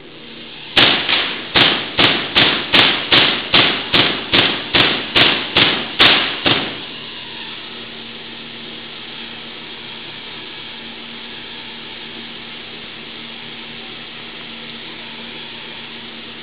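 A giant air-insulated Van de Graaff generator discharging: about fourteen sharp spark cracks in quick, even succession, roughly two and a half a second, stopping abruptly about six and a half seconds in. A steady hiss with a faint hum goes on underneath.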